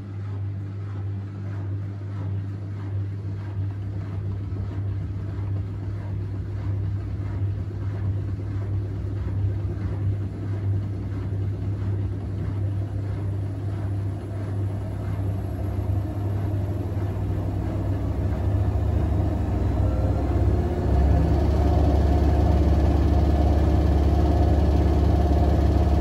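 AEG front-loading washing machine spinning up: a steady motor and drum hum that grows louder, with a faint rising whine. Late on, the low drum rumble steps up sharply as the spin speed climbs.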